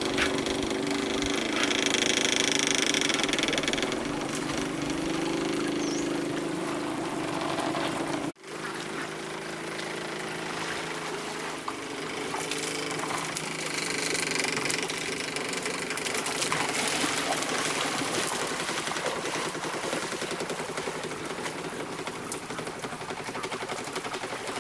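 River water rushing and splashing steadily around a bamboo water wheel, with a low steady tone in the first several seconds; the sound briefly cuts out about eight seconds in.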